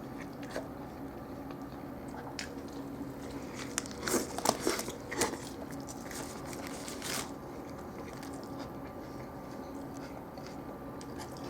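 Eating sounds of a Wendy's Dave's Triple cheeseburger being handled and bitten into: a cluster of sharp crackles about four to five seconds in and another near seven seconds, over a steady low hum.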